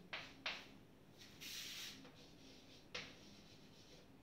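Faint chalk writing on a blackboard: a few short taps and one longer scratching stroke about a second and a half in.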